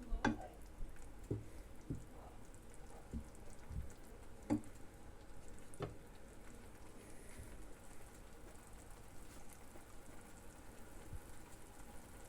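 Food sizzling faintly in a frying pan, with a handful of light knocks and clinks from cookware in the first six seconds.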